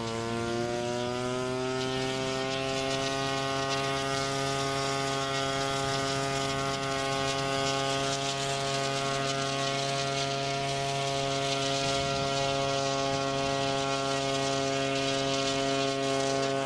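Electric motor and propeller of a balsa RC Tiger Moth biplane, rising in pitch as the throttle opens, then holding a steady whine in flight. It winds down in pitch as the throttle is cut at the very end.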